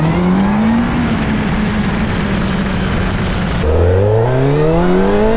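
Suzuki Hayabusa's 1340 cc inline-four on its stock exhaust, accelerating: the engine note rises through the first second, holds for a few seconds, then climbs again from low near the end.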